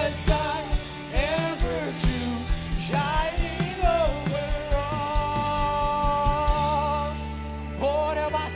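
Live worship band music: drums keeping a steady beat under bass and keys, with a voice holding long wavering notes. The drums drop out for about a second near the end while a low sustained note carries on, then they come back in.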